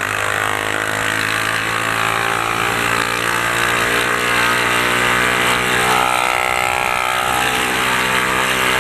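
Honda CG 150 Titan's single-cylinder four-stroke engine through a straight-through pipe with no muffler, running steadily as the bike is ridden. It is a loud racket.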